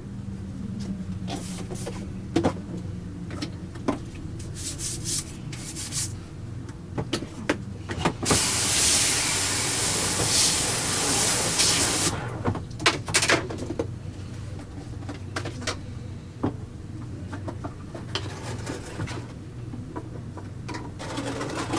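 Scattered clicks and knocks of parts and tools being handled on a Lindhaus Stealth power brush, over a steady low hum. A loud hissing rush lasts about four seconds in the middle.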